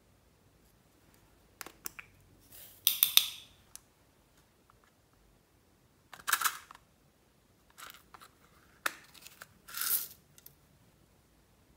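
Clicks and snaps of small plastic makeup cases being handled and opened, with several short bursts of scraping as the contents are scraped out of the plastic. The loudest burst comes about three seconds in, and others follow after about six, eight and ten seconds.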